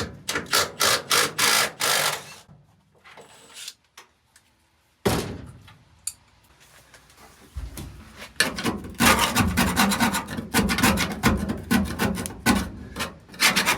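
Rough back-and-forth scraping strokes on the truck cab's floor, working off residue gummed up from old leaked gasoline. One short run of strokes, a pause with a single knock about five seconds in, then a fast, steady run of strokes from about eight seconds on.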